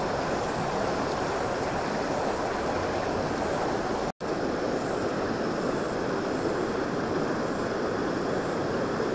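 Shallow stream water rushing over rocks, a steady even rush. It drops out for an instant about four seconds in, then the running water of river rapids carries on in the same steady way.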